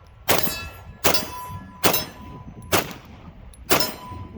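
A 9mm HK VP9 pistol fired five times at a steady pace of about one shot a second, each shot followed by a brief ringing.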